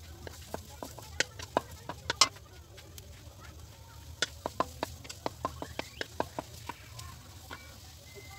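Wooden spatula tapping and scraping against a steel wok while ginger strips are stir-fried: a run of quick, irregular knocks, loudest about two seconds in and coming about four or five a second from roughly four to seven seconds in.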